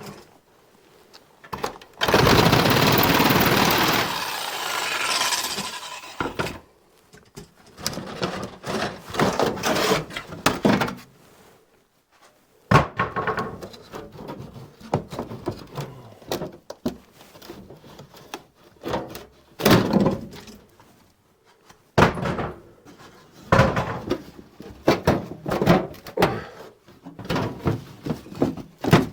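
Carpentry work on wooden wall boards: a loud, noisy stretch lasting about four seconds, then a run of separate knocks, thuds and scraping of wood.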